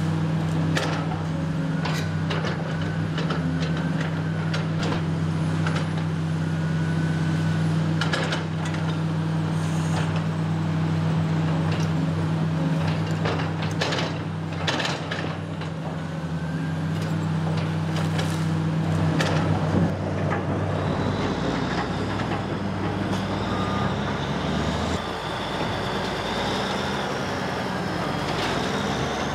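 Heavy diesel demolition machinery running steadily, with repeated crashes and knocks of debris as the building is torn down. About 20 seconds in the steady engine hum gives way to a deeper rumble.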